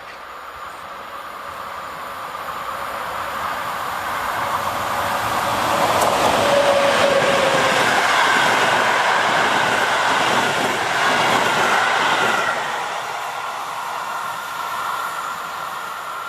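A train passing: its rolling noise builds over about six seconds, is loudest for the next six, then fades, with a thin high tone over the top while it is loudest.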